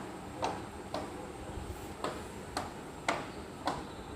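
A run of sharp, even ticks, about two a second.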